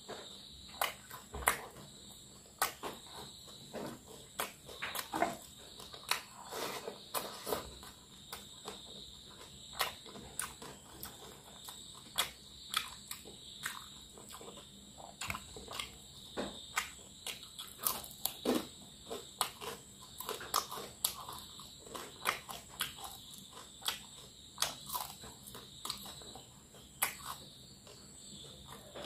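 Close-miked mouth sounds of fried fish being eaten by hand: wet chewing, smacking and small crunches as pieces are bitten and picked from the bones, coming in irregular clicks. A faint steady high tone runs underneath.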